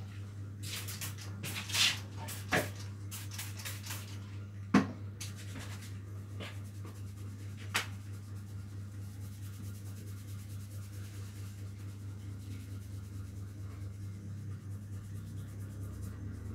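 Fingers rubbing and scratching rapidly through hair and over the scalp in a barber's head massage, a dense rustle, over a steady low hum. A few sharp taps stand out in the first half.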